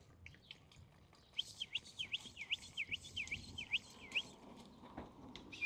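A bird calling in the background: a run of about nine quick repeated notes, each dipping down and back up in pitch, starting about a second and a half in and stopping near the fourth second.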